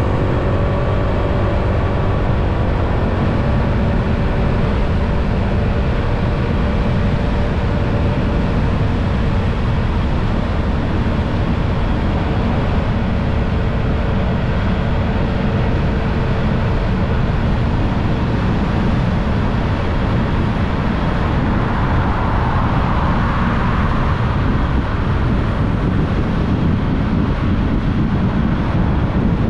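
Motorbike on the move: steady wind and road rumble on the action camera's microphone over the bike's engine, whose note stands out in the first several seconds. A brief swell of hissing noise comes about three quarters of the way through.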